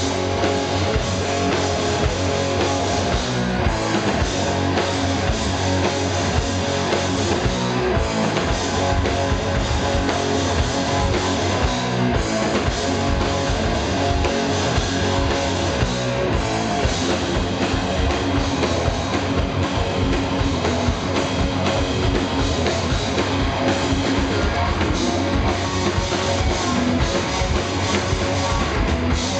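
A live heavy rock band playing: distorted electric guitars, bass guitar and drum kit, at a steady loud level.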